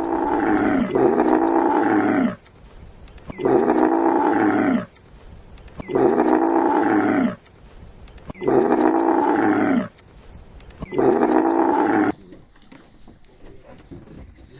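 An animal's loud, drawn-out, pitched call repeated at even spacing, about every two and a half seconds, six times, stopping about twelve seconds in.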